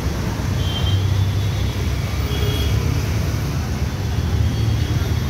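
Steady low rumble of a moving vehicle amid city road traffic, with a few faint short high tones about a second in and again about halfway through.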